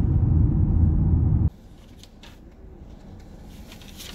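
Steady low rumble of a car driving, road and wind noise, that cuts off abruptly about a second and a half in. Then a quiet background with a few faint clicks and rustles.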